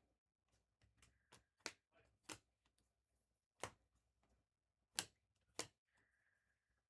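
Trading cards being handled: a handful of faint, irregularly spaced clicks and taps as cards are flipped and set down.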